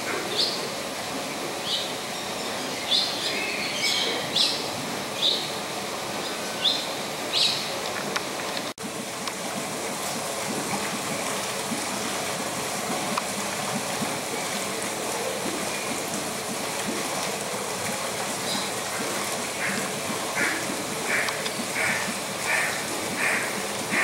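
Steady rush of a stream with birds calling over it: scattered short high chirps through the first eight seconds, then, from about 20 seconds in, a run of evenly spaced calls, roughly three every two seconds.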